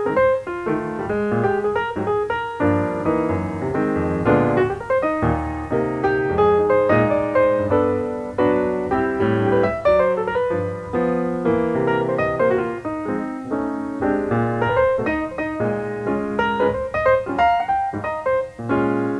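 Background piano music, a steady stream of quick notes.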